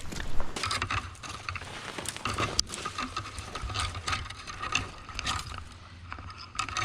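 Fishing reel being cranked: a rapid run of small clicks with a faint whir from its gears, and wind rumbling on the microphone.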